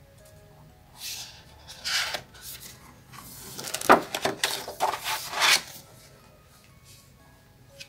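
Paper pages of a spiral-bound sketchbook being handled and turned: a few rustling, rubbing swishes between about one and five and a half seconds in, the sharpest near four seconds.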